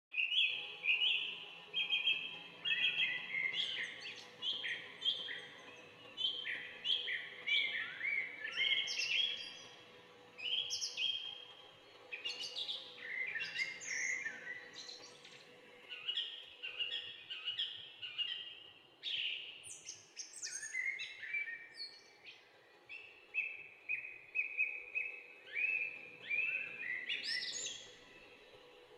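Red-vented bulbul calling: a steady stream of short chirping notes, many falling in pitch, with a few brief pauses.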